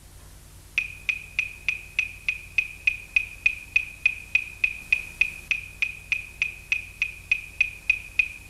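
Clapsticks struck in a steady beat, about three and a half sharp, bright wooden clicks a second, starting about a second in over a faint low hum.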